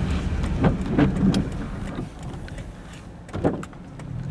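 Car interior at night: low engine and road rumble that drops away about two seconds in as the car slows, with a few knocks early on and one louder knock near the end.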